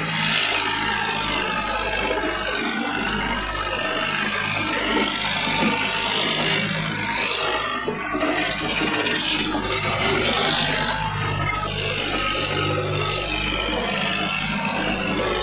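Tractor engine running steadily while driving on a dirt track: a low engine hum under loud, rough noise that swells and fades every few seconds.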